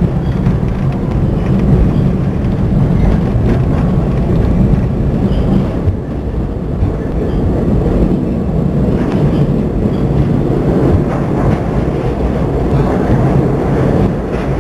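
New York City N subway train running along the track: a loud, steady low rumble of wheels on rail with occasional faint clicks.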